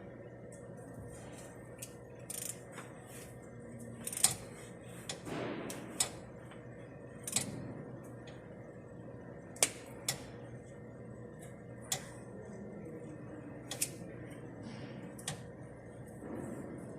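Hand tools and metal parts being handled while changing a fuel filter: scattered sharp clicks and clinks, about eight loud ones at uneven intervals, with fainter knocks and rustles between.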